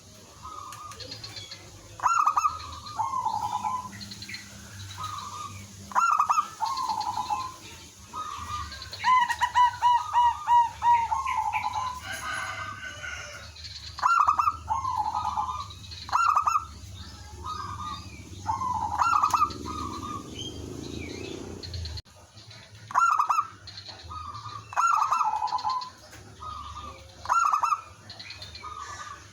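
Zebra doves cooing, with short staccato phrases repeating every second or two and one quick run of rapid, evenly spaced notes about nine seconds in.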